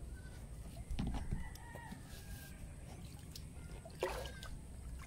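Rooster crowing, one long drawn-out call starting about a second in, then a shorter call at about four seconds.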